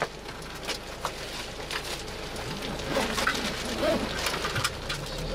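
Minibus driving along a lane, heard from inside the cabin: a low, steady engine drone and road noise with scattered clicks and rattles.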